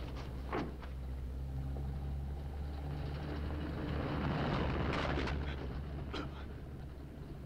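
Dump truck engine running with a steady low drone that swells to its loudest about four to five seconds in as the truck rushes past. A few sharp knocks cut through it, one near the start and others around five and six seconds in.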